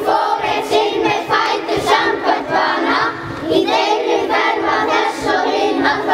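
A children's choir singing a song together in Icelandic, many young voices in unison.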